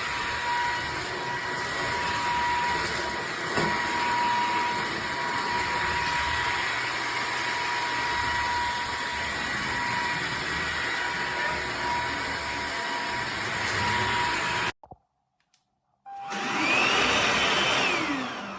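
Hoover H-FREE 100 cordless stick vacuum's motor running steadily with a whine, cutting off abruptly near the end. After about a second of quiet it starts again, the whine rising as it spins up, then falling as it winds down.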